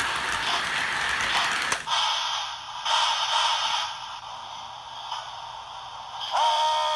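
Model train running on its track with a steady mechanical rattle that stops abruptly about two seconds in, followed by a couple of short noisy bursts. Near the end a steady multi-tone train whistle begins to sound.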